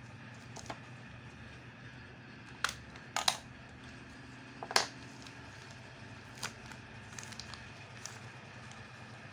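Hard plastic clicks and taps from a Nokia 3110 classic phone and its battery being handled and fitted into the battery compartment: a few separate clicks, the loudest about halfway through, lighter ones after. A steady low hum runs underneath.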